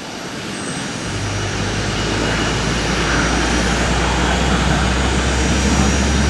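Fairchild Republic A-10 Thunderbolt II's twin General Electric TF34 turbofan engines running up on the ground close by: a steady jet roar with a low hum and a thin high whine, building in level over the first couple of seconds.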